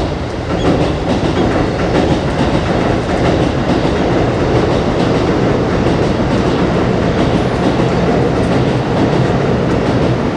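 Loud, steady crashing rattle of a train passing on an elevated track directly overhead, heard from the space below. It starts suddenly and cuts off abruptly.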